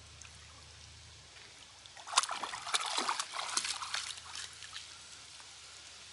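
A dog splashing and sloshing through shallow pond water: a quick run of splashes starting about two seconds in and lasting a couple of seconds, the first the loudest.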